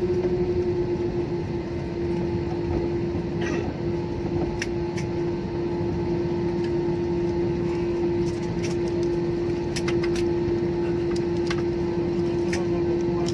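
Jet airliner cabin noise during the landing rollout: the engines and airflow make a steady drone with a strong hum as the plane slows on the runway, its wing spoilers raised. A scattered few light clicks and rattles come from the cabin.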